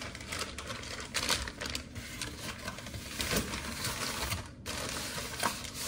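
Plastic bag crinkling around a camshaft, then a cardboard shipping box being handled, in a continuous run of irregular crackles and light knocks.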